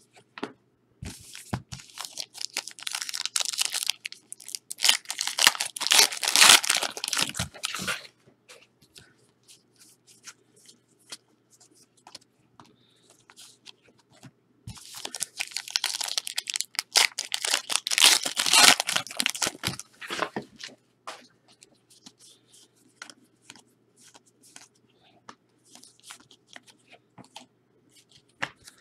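Trading-card pack wrappers being torn open and crinkled, in two long spells of rustling and tearing. Light clicks and ticks of cards being handled fall between the spells.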